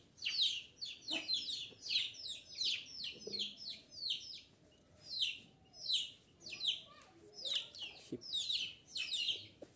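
Small birds chirping: a busy run of short, high, falling chirps, several a second, with a brief lull around the middle. A faint knock about eight seconds in.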